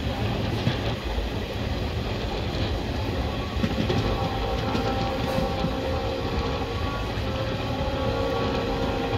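Indian Railways passenger train running, heard from the coach doorway: a steady rumble of the wheels on the rails.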